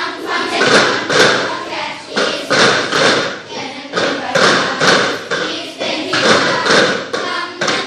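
A group of children doing a cup-song rhythm: plastic cups knocked and tapped on wooden desks in a repeating pattern of about two beats a second, with the children's voices over it.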